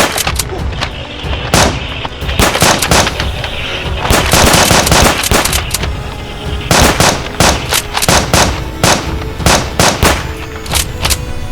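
Repeated gunfire-like shots, single and in rapid volleys, with a dense burst about four seconds in, over background music.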